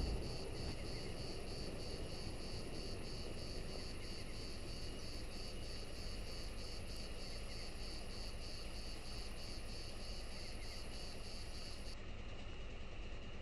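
Crickets chirping at night in an even rhythm of a few pulses a second, over a faint low rumble. The chirping cuts off abruptly about twelve seconds in.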